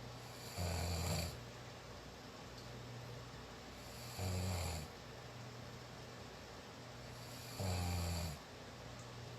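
A sleeping person snoring: three short, low snores, each under a second long and about three and a half seconds apart, over a faint steady hum.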